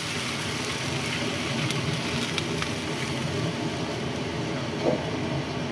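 Water being poured into a hot wok of sautéed chicken and spices, hissing and sizzling steadily. A wooden spatula scrapes lightly against the pan a few times.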